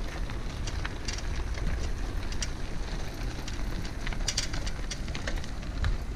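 Bicycle rolling over a gravel path: tyres crunching, with scattered small clicks and rattles over a steady low rumble.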